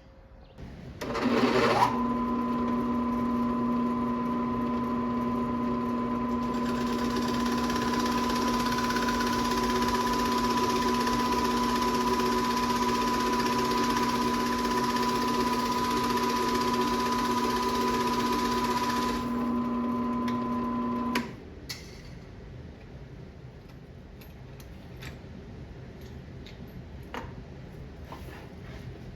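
An electric workshop power tool's motor starts with a brief rising whine and then runs steadily with a hum and a high whine. For most of its run a hissy cutting or sanding noise lies over it. It shuts off abruptly about two-thirds of the way through, leaving faint taps and clicks.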